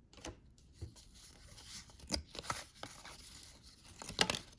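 Trading cards and pack wrappers being handled: light rustling and paper noise with a few sharp taps, the sharpest about two seconds in and again near the end.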